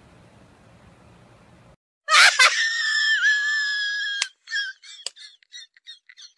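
A loud, high-pitched scream held on one pitch for about two seconds, starting about two seconds in, followed by short, broken squeaky sounds.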